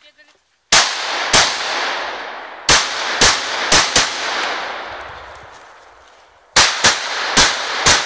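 Semi-automatic rifle firing about ten shots in three quick strings (two, then four, then four after a pause of two to three seconds), each shot trailing off in a long echo.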